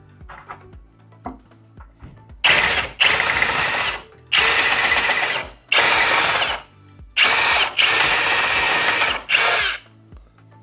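Cordless drill cutting through a metal frame post with a step bit, run in about seven short trigger pulls of half a second to a second and a half each, starting about two and a half seconds in, with a high whine. The newer step bit is cutting well, after a dull one was swapped out.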